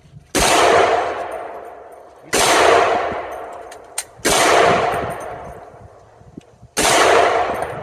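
Four rifle shots about two seconds apart, each followed by a long echo that fades away.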